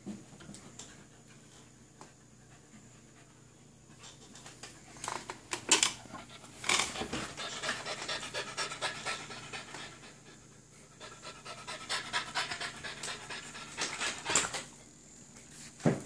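American Bully puppy panting fast and hard while tugging on a rope toy, starting about four seconds in and pausing briefly near the middle. A few sharp knocks come in between the panting.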